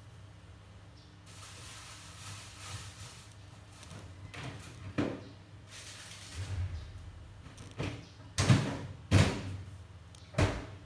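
Several sharp knocks and thuds, like cupboard doors, over a steady low hum. The two loudest knocks come near the end, less than a second apart, after a spell of hiss.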